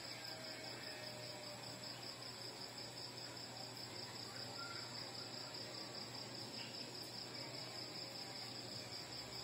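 Crickets chirping in a steady, evenly pulsing high trill, over a low steady hum.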